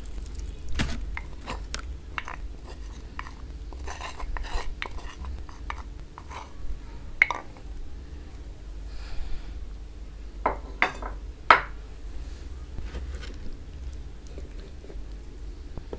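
Clay tagine pot and dishes handled on a plastic tray: scattered knocks, clicks and light clatter, with the loudest knocks bunched about two-thirds of the way through.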